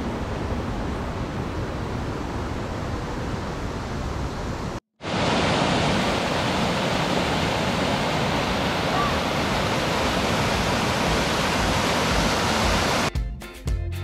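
Mountain stream rushing over rocks: a steady rush of water, cut off for a moment about five seconds in and coming back louder. Music with a beat starts near the end.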